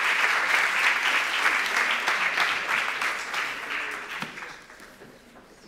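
An audience applauding. The clapping holds steady for about three seconds, then thins and dies away near the end.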